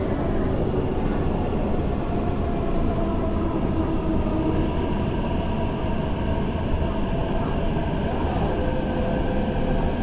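MTR Kwun Tong Line metro train pulling into an underground station platform behind screen doors and braking: a steady rumble of wheels on rail with a faint whine that slowly falls in pitch as it slows.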